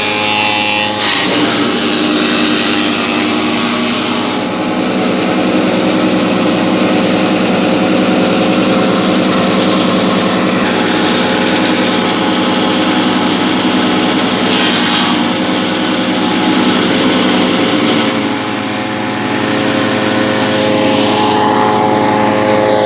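Wood chipper-shredder machine running steadily on its small engine. Its note drops about a second in and rises again near the end.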